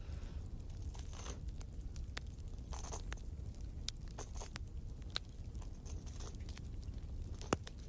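Wood fire crackling: scattered sharp pops over a low steady rumble, with one louder pop near the end.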